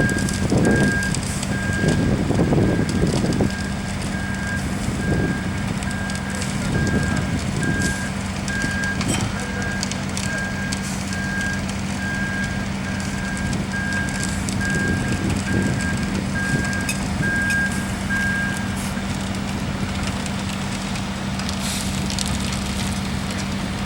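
Backup alarm of a construction vehicle, most likely a ready-mix concrete truck reversing, beeping about once a second and stopping near the end, over a steady diesel engine drone.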